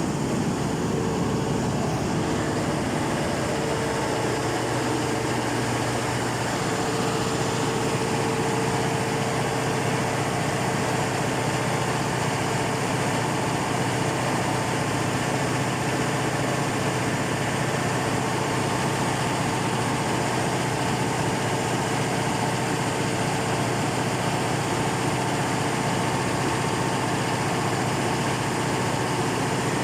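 Cummins KTA50 16-cylinder turbocharged diesel engine running at a steady speed on its test run after a general overhaul.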